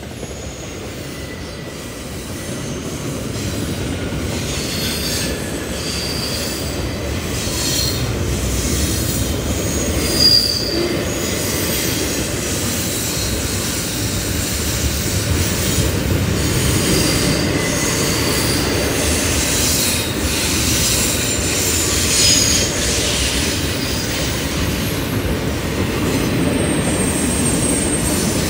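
Double-stack intermodal well cars of a CN freight train rolling past close by: a steady rumble of steel wheels on rail that builds over the first few seconds, with brief high wheel squeals throughout and a single clunk about ten seconds in.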